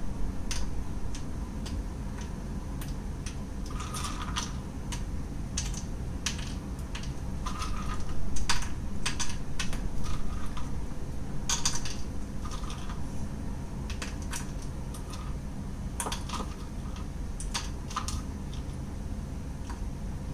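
Cashew-nut pieces dropped by hand into a frying pan one or a few at a time, making irregular light clicks and taps on the pan, over a steady low hum.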